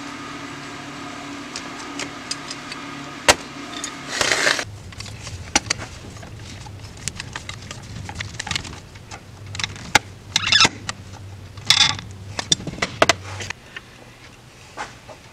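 Light metal clicks, taps and short scrapes from a screwdriver and small parts worked on an Edelbrock 1406 carburetor's aluminium air horn, over a steady background hum.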